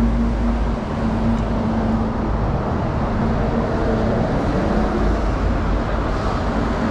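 City street traffic noise: a steady rumble of road vehicles, with a low steady hum that fades out a few seconds in.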